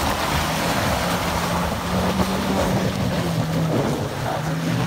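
Off-road 4x4's engine running hard at high revs under load, its pitch stepping up about two seconds in and then holding.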